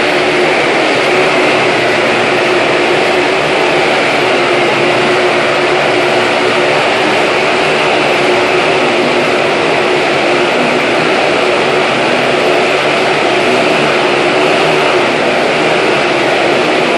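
Motorcycle engines held at high revs as the bikes circle inside a steel-mesh globe of death, making one loud, unbroken drone.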